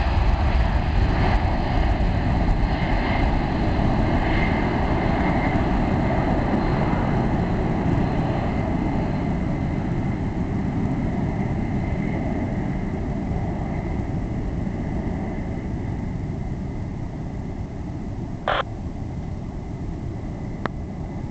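Jet engines of a four-engine Boeing 747SP, one of them a Pratt & Whitney Geared Turbofan demonstrator, as the airliner climbs away after takeoff: a loud steady rumble with faint whining tones that slowly fades as it draws off. Two short sharp clicks near the end.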